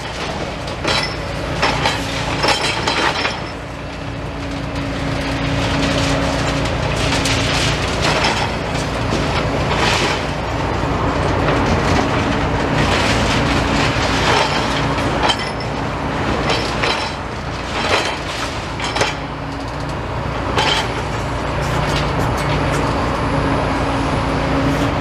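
Demolition excavators' diesel engines running with a steady drone, overlaid by irregular crunching, cracking and clattering as the machines break up the building's rubble and metal.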